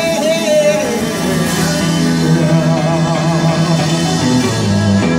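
Live rock band playing: electric guitars, bass guitar, drums and fiddle, holding long sustained notes over a bass line that steps down near the end.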